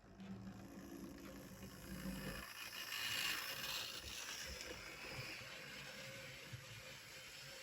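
Hornby 00 gauge Thomas the Tank Engine model locomotive running on the track with its two coaches: a steady mix of small electric motor hum and running noise. It starts abruptly, is loudest about three seconds in, then eases slightly.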